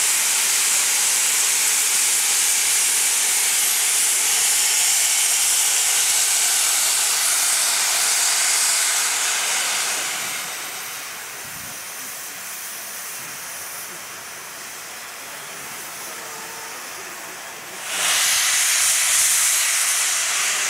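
Steam hissing out low at the front of LMS Jubilee steam locomotive 45596 'Bahamas'. It is a loud, steady hiss that dies down to a quieter hiss about halfway through, then bursts out loudly again near the end.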